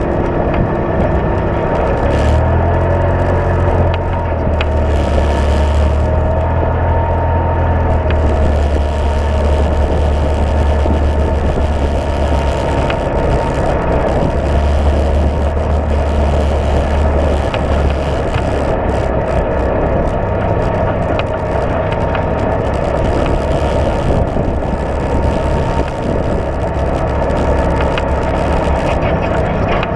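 Side-by-side UTV's engine running steadily under way on a dirt trail, heard from on board the moving machine. The low drone eases and picks up a few times.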